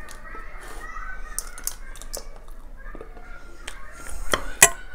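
A steel spoon scraping and clicking against a plate as a spoonful of chocolate cake is scooped, a cluster of sharp clicks about four seconds in with the loudest just before the end. Distant children's voices at play go on behind.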